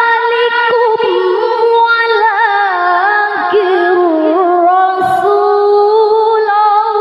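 A woman reciting the Quran in the melodic tilawah style into a microphone, holding long, high notes with wavering ornaments. The pitch steps down over the first few seconds, and there is a brief catch of breath about five seconds in before the next long phrase.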